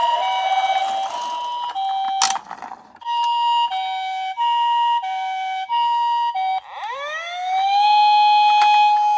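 Toy ambulance's battery-powered electronic siren playing through its small speaker: a two-tone 'pee-po' alternating siren, cut by a click about two seconds in, then resuming. Near the end it switches to a wail that rises and holds steady.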